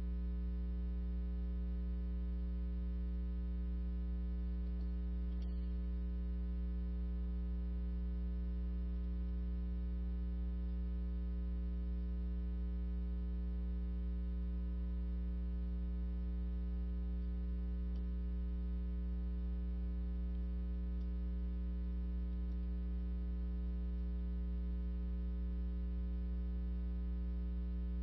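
Steady electrical mains hum in the sound system: a low, unchanging hum with a stack of higher buzzing overtones, with one faint click about five and a half seconds in.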